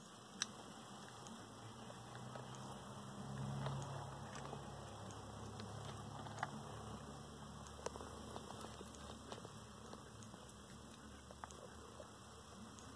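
Faint scattered clicks and scratches of land hermit crabs' legs and shells against a shell feeding dish, with a sharp click about half a second in. A low hum underneath swells a few seconds in and fades again.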